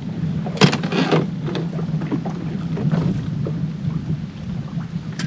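Wind buffeting the microphone, heavily filtered by noise reduction, leaving a steady low rumble and hiss. A few brief knocks break through it, the loudest about a second in.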